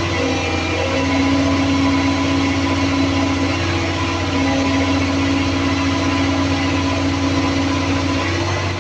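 Volvo EC360BLC excavator running steadily, its diesel engine hum under a strong steady tone that drops out briefly a few times.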